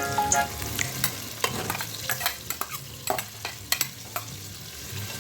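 Food sizzling in a frying pan while it is stirred, with scattered taps and scrapes of a utensil against the pan.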